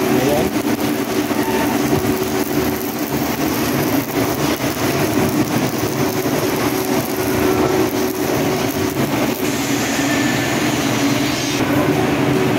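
Electric arc welding on black iron pipe: a continuous crackling, sizzling arc with a steady hum underneath, as a full weld is run on a pipe joint.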